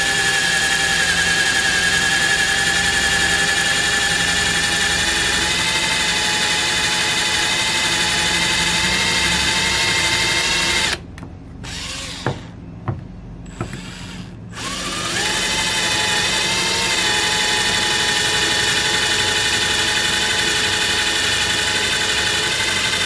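Power drill boring slowly into an aluminum Chrysler TorqueFlite 727/904 transmission valve body through a guide plate, the motor running at a steady pitch, for a shift-kit modification. The drill stops about 11 seconds in, gives a short burst about three seconds later, and runs steadily again from about 15 seconds on.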